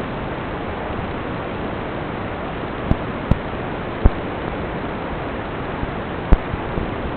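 Steady rushing hiss with four sharp knocks, about three, three and a half, four and six seconds in.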